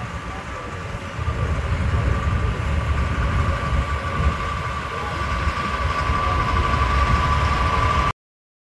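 A heavy vehicle's engine running as it drives past, a low rumble with a steady whine that grows louder toward the end. The sound cuts off abruptly near the end.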